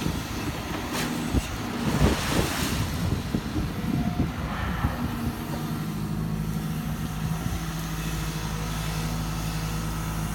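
Hyundai 140 crawler excavator's diesel engine running under hydraulic load while the bucket dumps dirt onto a spoil pile, with rough spilling and knocking for the first few seconds. It then settles into a steady engine hum as the arm swings back to dig in the trench.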